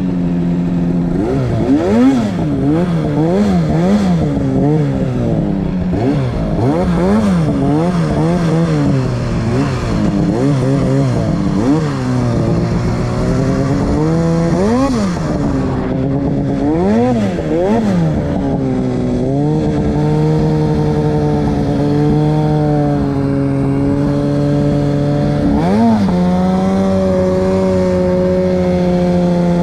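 Two-stroke mountain snowmobile engine revved up and down about once a second as the throttle is worked. About two-thirds of the way in it settles into a steady run, with one quick rev a little later.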